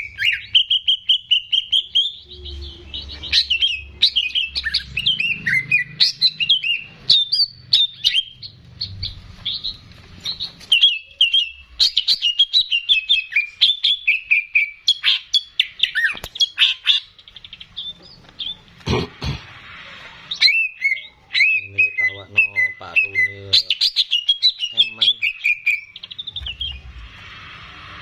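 Greater green leafbird (cucak ijo) singing a long, loud run of rapid, varied chirps and whistled phrases, with a short lower rattling stretch about three quarters of the way through.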